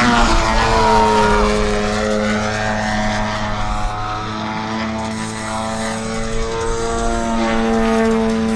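Engine and propeller of an AJ Laser 230 radio-control aerobatic airplane in flight, its pitch dropping over the first second or so and then holding steady.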